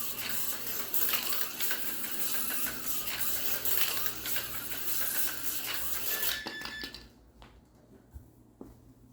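HO-scale slot car, a Porsche 962, running on plastic track: a busy buzzing clatter full of rapid clicks from its motor and pickup shoes. It drops away about seven seconds in, leaving only a few light ticks.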